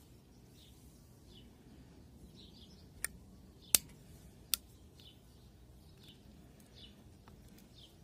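Three sharp metallic clicks close together, the middle one loudest: the spring-loaded tools of a Victorinox Ranger Swiss Army knife snapping open or shut. Faint bird chirps repeat in the background.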